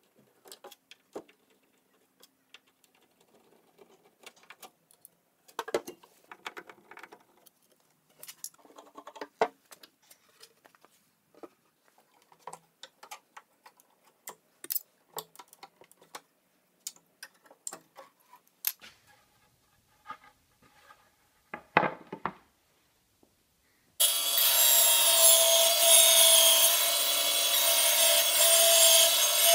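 Scattered clicks, knocks and wooden clatter as an old pine dresser's door and frame are taken apart, with one sharper knock. Then, about three-quarters of the way through, a table saw starts up loud and steady, cutting a pine board.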